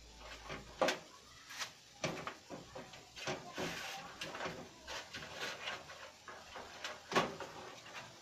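Irregular knocks and clicks of hands working inside an open sheet-metal computer case, handling cables and parts against the chassis; the sharpest knocks come about a second in and again near the end.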